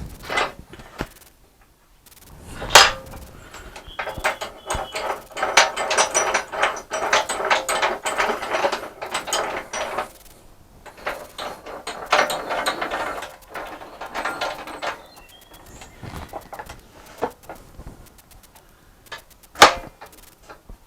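Woodworking clamps being tightened on a wooden glue-up: two long spells of rapid mechanical clicking and ratcheting, with sharp wooden knocks, one loud one near the start and another near the end.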